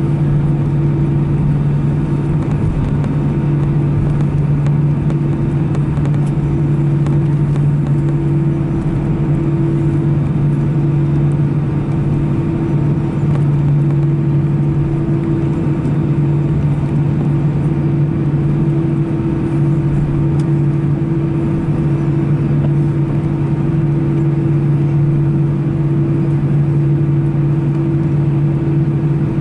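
Steady engine and airflow noise inside the cabin of an Airbus A319-111 with CFM56 engines, a constant rushing drone with a steady low hum under it.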